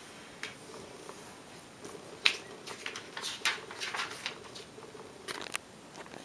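Sheet of origami paper being handled and unfolded on a tabletop: scattered crisp rustles and crackles of paper, the sharpest about two seconds in.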